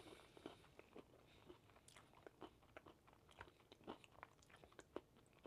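Close-up chewing of a strawberry pastry with a hard, crunchy base: a quiet run of small, irregular crunches, several a second.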